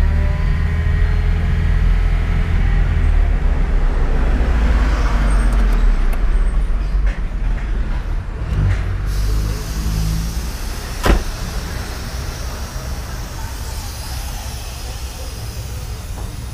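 Chevrolet Corsa engine idling with a steady low rumble. A faint falling whine fades out in the first couple of seconds, and there is a single sharp knock about eleven seconds in.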